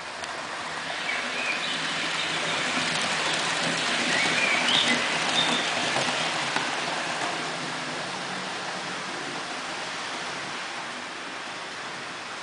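H0 scale model train rolling along the track, its wheel-on-rail noise swelling as it passes close and then fading, over a low motor hum. A few short high squeaks sound in the first half.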